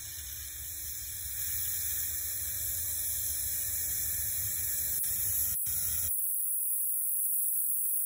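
Smith Quickbraze torch with a five-flame tip burning: a steady high hiss that grows louder over the first couple of seconds. A single click about five and a half seconds in.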